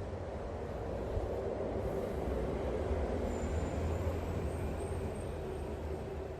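A steady low rumble of a running vehicle, unbroken throughout, with faint high whining tones about halfway through.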